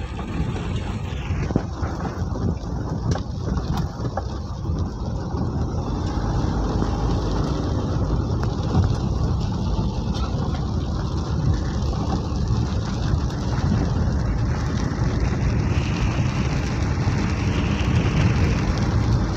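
A vehicle driving on a wet road in heavy rain, heard from inside the cab: a steady low rumble of engine and road noise with a fast patter of rain on the windscreen.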